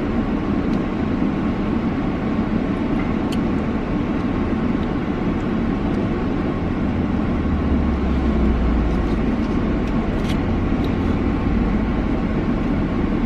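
Steady road and engine noise inside a moving car's cabin. A deeper rumble swells for a couple of seconds past the middle.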